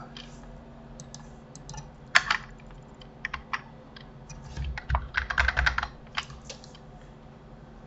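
Computer keyboard keys and mouse buttons clicking in irregular bursts: a few scattered clicks, a louder one just after two seconds, then a dense run of clicks around five to six seconds in.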